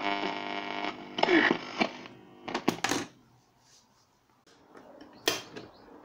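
Old portable radio's speaker giving a buzzing mains hum as the broadcast drops away, with a brief snatch of sound about a second in, fading out after about two seconds. Then a few sharp clicks from the set being handled, around the middle and once near the end.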